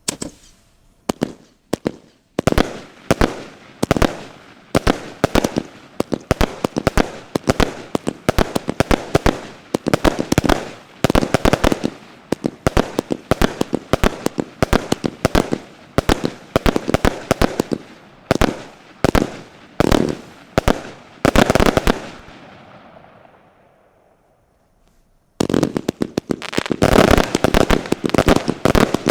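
Fireworks going off in quick succession, a rapid string of sharp bangs several a second. The bangs fade out over a couple of seconds after about 22 s, then a second dense volley starts about 25 s in.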